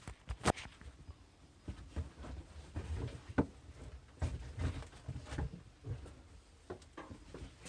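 Irregular light knocks, taps and rustling in a small room, with no steady machine running.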